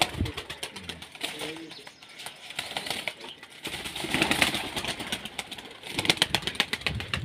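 Domestic pigeons' wings flapping and clapping as birds take off from a loft wall, in fast runs of claps at the start, around four seconds in and again about six seconds in. A pigeon coos briefly about a second in.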